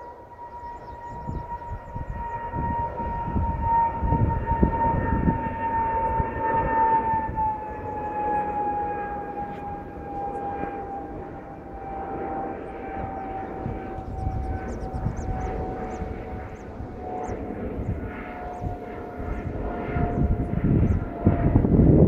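General Electric GE90 turbofans of a Boeing 777 climbing out after takeoff, singing: a clear high fan whine that slowly falls in pitch over a low rumble, the rumble growing louder near the end.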